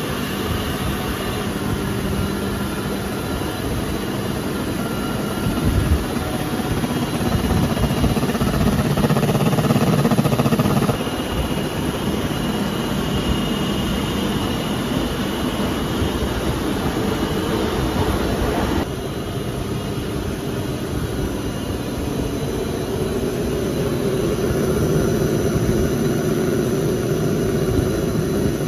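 Steady whir and hum of a running PE pipe extrusion line: the pumps and motors of its vacuum sizing and cooling tanks. It gets louder for a few seconds early on, then drops suddenly about eleven seconds in and again about nineteen seconds in.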